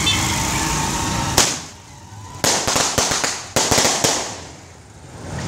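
Firecrackers going off: one sharp bang about a second and a half in, then a quick string of cracks and bangs over the next two seconds.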